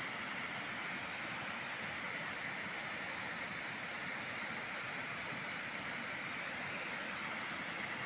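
Waterfall and white-water rapids rushing over granite rocks, a steady, unbroken rush of water.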